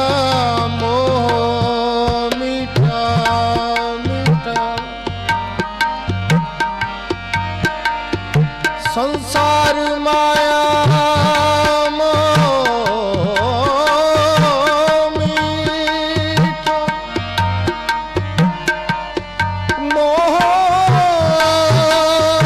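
Sikh kirtan: harmonium and tabla accompanying a singing voice that sustains and bends long notes, dipping and rising about halfway through. The tabla keeps a steady rhythmic pattern underneath.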